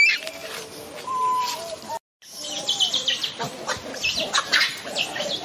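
Macaques calling: rapid high-pitched squeaks and chirps with a few longer, lower coo-like calls. The calls break off for a moment about two seconds in, then come thick and fast again.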